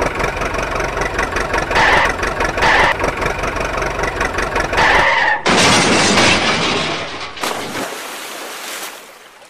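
Truck engine sound from a radio-controlled toy dump truck running steadily, with a few short hisses. About five seconds in it cuts abruptly to a loud rush of splashing water as the truck falls in, fading away near the end.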